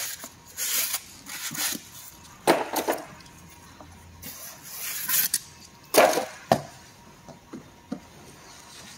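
Plastic wrap and foam packing rustling and scraping against cardboard in about five short, irregular bursts, with a few small knocks between them, as hands work the packing loose around a boxed engine block.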